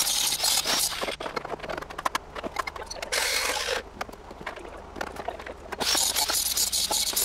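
Small angle grinder cutting steel sheet: a harsh, steady grinding hiss for about the first second, again briefly about three seconds in, and again from about six seconds on. In between come scattered metal clinks and knocks.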